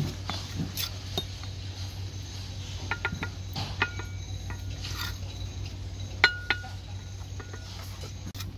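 Bricklayer's steel trowel tapping hollow clay bricks down into mortar, a scatter of sharp clinks with brief ringing, loudest about six seconds in.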